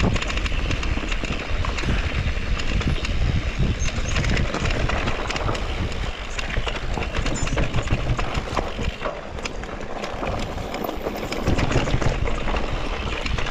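Mountain bike riding down a dirt trail: tyre noise over dirt and roots with a continual clatter and knocking of the bike, over a heavy wind rumble on the microphone.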